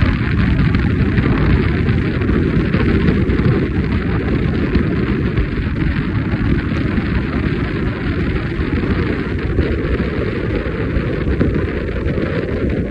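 Steady loud rumbling noise of wind buffeting the microphone while it moves outdoors.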